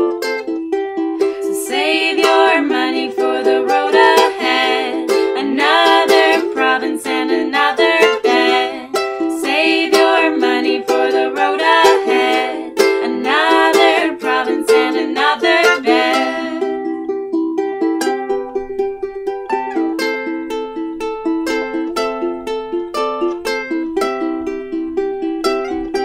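Two ukuleles played together, female singing over them from about two seconds in until about sixteen seconds in, after which the ukuleles carry on alone with a picked pattern.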